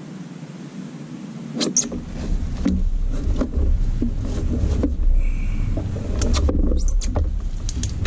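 Scattered knocks and thumps on the plastic hull of a fishing kayak as a large snook is handled and laid on the deck, over a low rumble that sets in about two seconds in and lasts most of the way.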